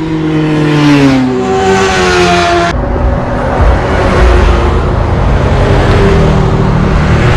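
Loud vehicle engines running: an engine note falls in pitch over the first second or so, and just before three seconds in the sound switches abruptly to a steady, rough engine rumble.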